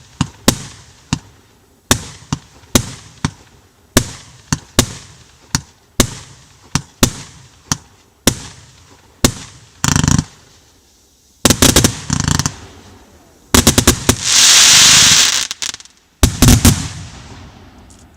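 A 130-shot, 30 mm (1.2-inch) fireworks battery firing. Single sharp bangs come about one or two a second, then rapid volleys follow from about ten seconds in. Near the end there is a loud two-second rush of dense noise and one more quick volley.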